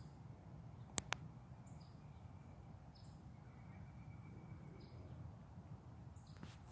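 Faint outdoor ambience: small birds chirping with short high falling notes every second or so over a steady low rumble. Two sharp clicks close together about a second in.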